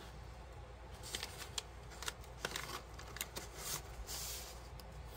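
Paper rustling as a stiff printed journal card is handled and slid into the pages of a handmade paper journal: a scatter of small sharp paper ticks and crinkles, with a longer sliding rustle about three and a half seconds in.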